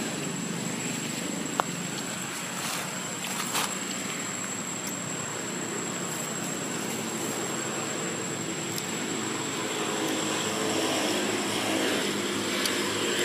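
A steady engine drone, a little louder over the last few seconds, under a constant thin high-pitched whine, with one sharp click about one and a half seconds in.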